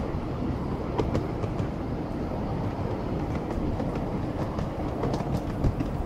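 Train running along the rails: a steady low rumble with scattered sharp clicks and clacks.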